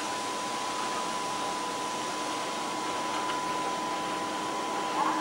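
DR class 243 electric locomotive's cooling blowers running: a steady rushing whir with a steady high whine over it.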